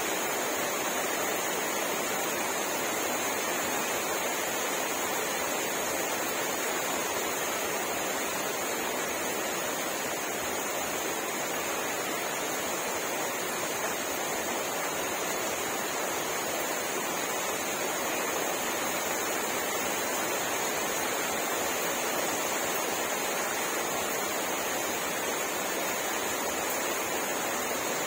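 Steady rain falling, an even rushing hiss with no breaks or gusts. A thin, steady high-pitched hiss runs through it.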